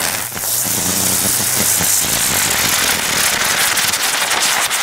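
Keller Brummkreisel ground spinner firework spinning on asphalt, giving a loud, steady hiss as it sprays sparks.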